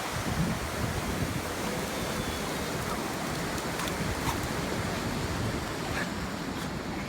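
Sea surf washing onto a beach: a steady rushing noise with no break.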